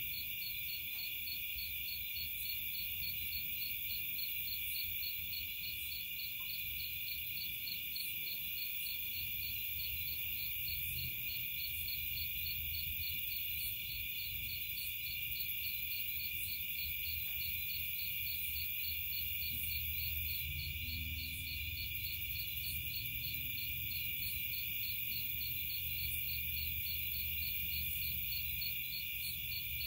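A chorus of night-singing insects: a steady, high, fast-pulsing trill that goes on without a break, with faint higher ticks about once a second and a low rumble of handling noise underneath.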